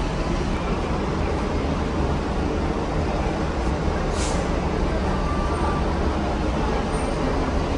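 Large coach's diesel engine running steadily with a heavy low rumble as the bus moves through the terminal yard, with a short hiss of air about four seconds in.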